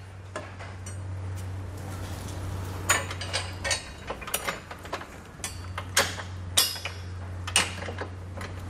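Steel bolts and a steel tow-bar base plate clinking and tapping against the side plates as the bolts are worked by hand through the lined-up holes. There are a dozen or so separate sharp metal clicks over a steady low hum.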